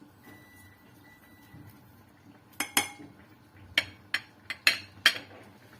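Spoon tapping against a saucepan: a quiet start, then about eight quick, sharp clinks over the last three seconds as a spoonful of garden cress seeds is tapped off into the milk.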